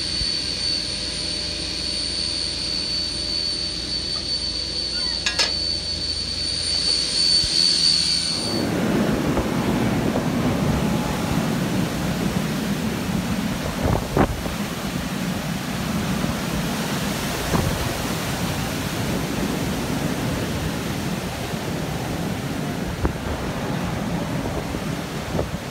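A steady high-pitched machine whine with a low hum in a machine shop, cut off suddenly about eight seconds in by hurricane-force wind. The wind gusts through trees and buffets the microphone as a heavy, rushing noise, with a few knocks.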